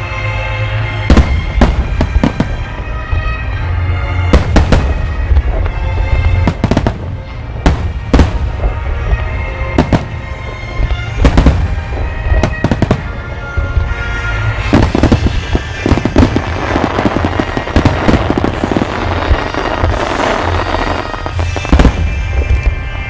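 Aerial firework shells bursting in a rapid series of sharp booms, with music of steady held tones playing underneath. Past the middle the bursts thicken into a dense, continuous crackle for several seconds.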